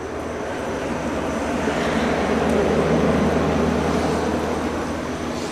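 A vehicle passing on a wet road: tyre and road noise swells to a peak about three seconds in, then fades, over a steady low hum.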